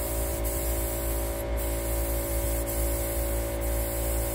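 Air-powered paint spray gun hissing steadily as it sprays paint onto a steel smoker.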